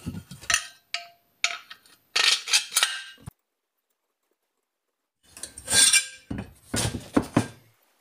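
Metal clinks, knocks and scrapes as a two-stroke cylinder barrel and a crankcase half are handled and fitted together on a wooden bench. The sound stops dead for about two seconds in the middle, then picks up again with more clinking.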